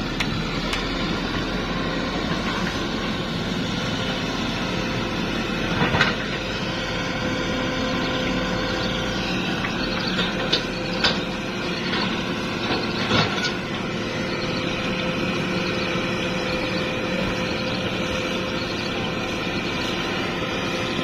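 Hitachi excavator's diesel engine running steadily as it works, with a few sharp knocks and clanks about a third of the way in and again around the middle.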